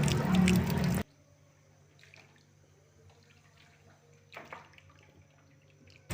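About a second of splashing, trickling liquid that cuts off suddenly, leaving near silence with a few faint clicks and one small knock partway through.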